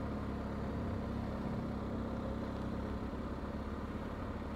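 BMW R1250 GS Adventure's boxer-twin engine running steadily at low speed, a low, even hum.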